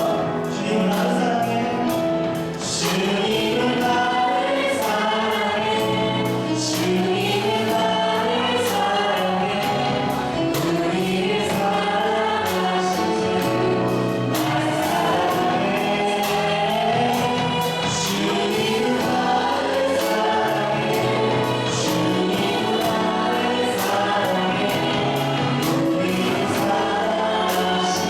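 A praise team and congregation singing a Korean worship song with band accompaniment, steady drum and cymbal strokes.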